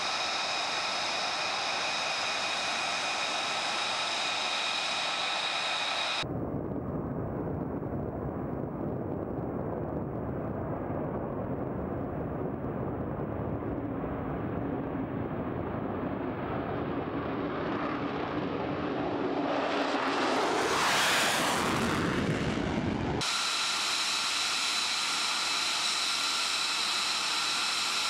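F-35 Lightning II's F135 turbofan whining steadily on the ground, with several high tones. About six seconds in it cuts to a jet's deep rumble that swells as the jet comes down the runway toward the listener, loudest about 21 seconds in, then cuts back to the ground idle whine.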